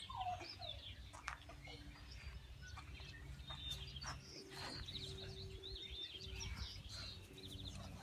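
Quick, high bird chirps and short trills over a low steady hum, with a few soft falling whimpers from springer spaniel puppies near the start.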